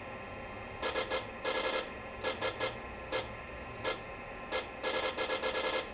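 PC speaker sound effects from SimCity: short buzzy beeps as roads are laid with the mouse, some single and some in quick runs, over the computer's steady hum.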